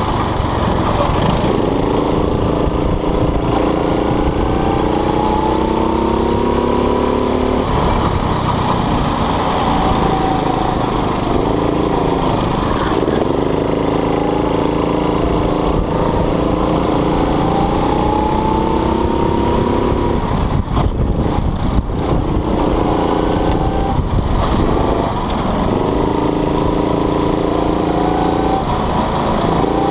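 Go-kart engine heard onboard at racing speed: its note climbs steadily along the straights and dips sharply several times as the kart slows for corners, then climbs again as it accelerates out.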